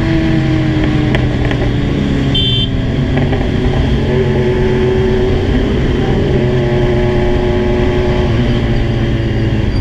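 Kawasaki Z1000's inline-four engine running at steady cruising revs while riding. The pitch eases down a little over the first few seconds, then holds level.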